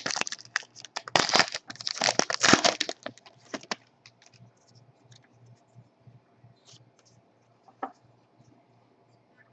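A foil trading-card pack being torn open and its wrapper crinkled, a run of dense rustling for about the first four seconds. After that only a few faint small clicks and one short tick.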